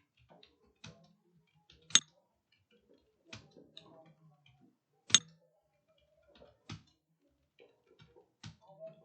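Computer keyboard keystrokes: irregular, fairly sparse clicks, with two much sharper, louder clacks about two and five seconds in.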